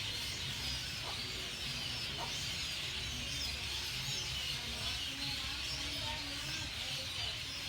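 Small birds chirping and twittering, many short high chirps overlapping without a break, over a low steady background rumble.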